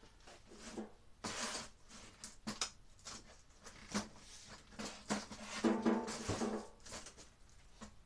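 Handling noise from rummaging through stored items: scattered knocks, rustles and clatter of objects being picked up and moved, in a small reverberant room.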